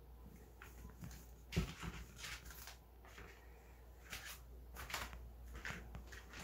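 Faint scattered knocks and rustles from footsteps and a handheld camera being moved, with one sharper thump about a second and a half in, over a low steady hum.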